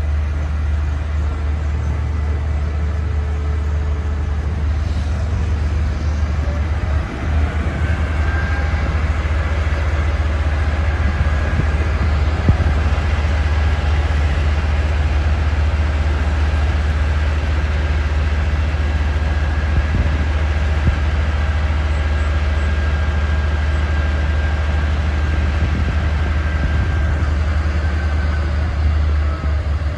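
Construction machinery engine running steadily with a heavy low rumble. Its whine rises about seven seconds in, holds, and falls off again near the end.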